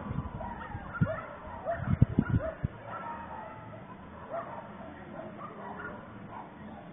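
Several dogs yipping, barking and whining, with short overlapping rising calls. A few low thumps about one and two seconds in are the loudest sounds.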